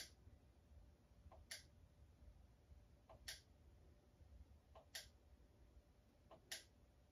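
Quiet, regular clicking of a remote-control button, about five presses here, one every second and a half or so. Each press is a soft double click, press then release.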